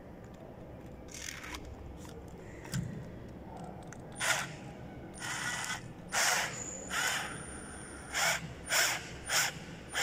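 Cordless drill driving a long screw through a socket faceplate into its back box, in a string of short bursts, most of them in the second half.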